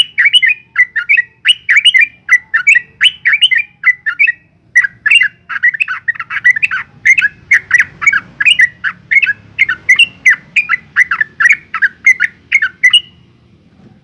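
Yellow-vented bulbul (trucukan) singing a long, rapid run of chattering notes, about four or five a second, with one brief break and stopping shortly before the end.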